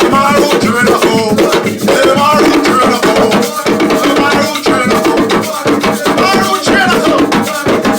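Drumming in a steady rhythm with voices singing over it.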